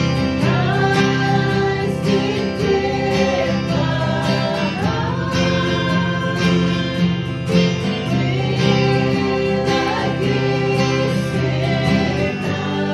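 Two acoustic guitars playing a hymn tune together: strummed chords under a melody that glides between notes.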